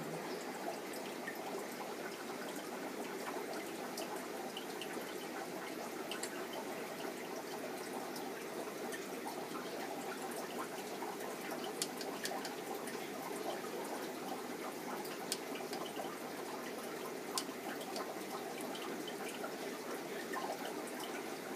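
Steady trickling and bubbling of water in a fish tank, with scattered small drip-like ticks.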